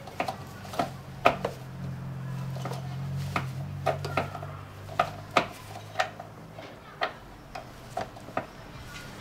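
Sharp metallic clicks and clinks, roughly one a second, of a ratchet wrench on an extension bar tightening the new car battery's hold-down bolt. A low hum runs underneath for a few seconds in the first half.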